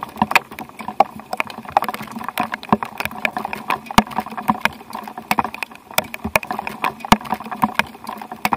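Raindrops striking a hard surface in many quick, irregular taps.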